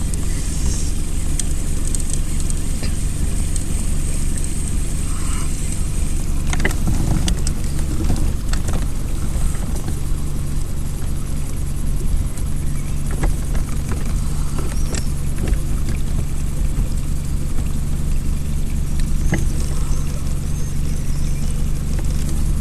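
Small fishing boat's motor running steadily at low speed, a low even hum, with a few light knocks and clicks.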